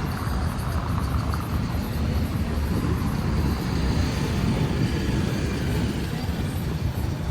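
Steady low rumble of vehicle engines and traffic.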